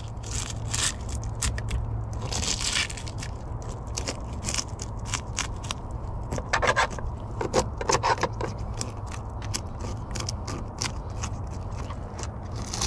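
Metal spoon scraping the scales off a fish on a plastic cutting board, in quick, irregular strokes with small clicks and rasps.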